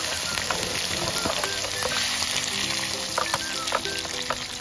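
Canned pineapple rings frying in melted butter in a nonstick pan: a steady sizzle with scattered crackles and pops.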